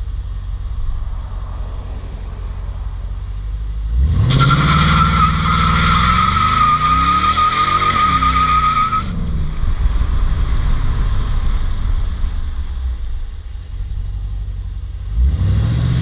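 2017 Dodge Charger R/T's 5.7-litre Hemi V8 on its stock factory exhaust, revving hard while the rear tyre spins in a burnout. A steady high tyre screech starts about four seconds in and lasts about five seconds. The engine then settles back and revs up again near the end.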